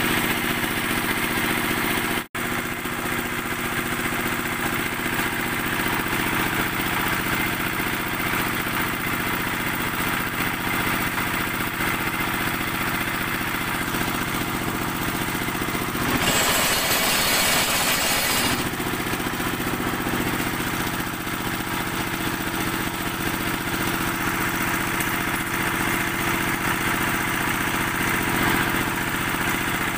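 Single-cylinder stationary diesel engine running steadily, driving a concrete-block press. About sixteen seconds in, a louder harsh noisy burst lasts about two seconds. The sound cuts out for an instant about two seconds in.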